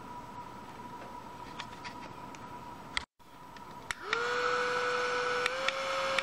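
Light plastic handling clicks, then about four seconds in a click and the small motor of a USB-rechargeable bladeless handheld fan starts, spinning up into a steady whirring whine. The pitch steps up a notch near the end as a higher speed is selected.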